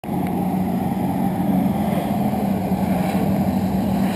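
Jet ski engine running with a steady drone, pumping water up to a flyboard rider hovering on the jet.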